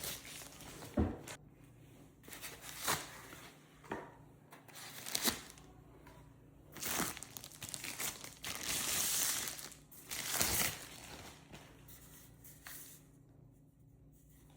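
Packaging crinkling and rustling as it is handled: a string of short rustles, with a longer rustle from about eight to ten seconds in, then it goes quiet near the end.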